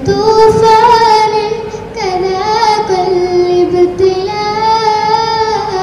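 A teenage girl's solo voice, unaccompanied, singing an Arabic poem in long, held notes that bend and glide, with short breaks about two and four seconds in.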